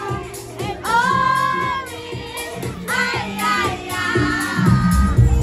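Music: a high female voice sings long held notes that bend in pitch over a light backing. Near the end a heavy bass beat comes in and the music gets louder.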